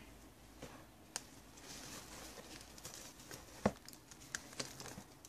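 Faint rustling and crinkling of white paper wrapping as a small succulent is unwrapped by hand, with scattered small clicks and one sharper tap about three and a half seconds in.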